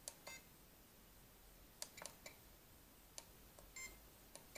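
Handheld RC radio transmitter's buttons clicking about half a dozen times, with three short high key beeps, as its menus are stepped through to set up a new model.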